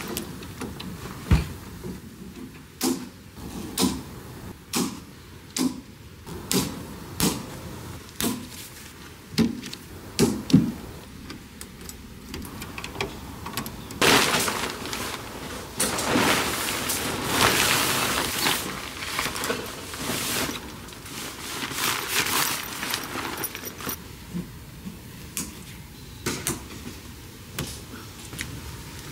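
Things being handled: a run of separate knocks and clacks, then several seconds of rustling, then more clacks.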